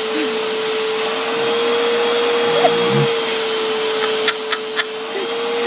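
Vacuum cleaner running steadily, a constant motor whine over airflow hiss, with three quick clicks a little past the middle.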